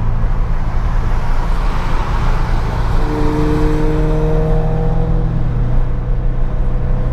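Subaru 3.6R flat-six engine running through an aftermarket axle-back exhaust, loud and continuous. Its note rises slowly for a couple of seconds partway through as the car pulls.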